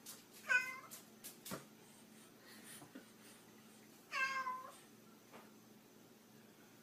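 Cat meowing twice, a short meow and then another about three and a half seconds later, with a couple of light knocks from the pet-door flap in between.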